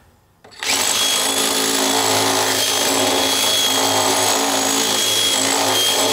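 DeWalt cordless drill starting about half a second in and running steadily at an even speed, drilling out a hole a little wider so a brake-switch part will fit.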